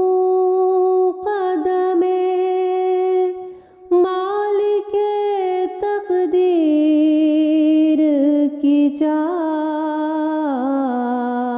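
Unaccompanied voice humming a slow melody in long held notes with gliding ornaments, breaking off briefly a little past three seconds in: the wordless vocal interlude of a sung Urdu nazm.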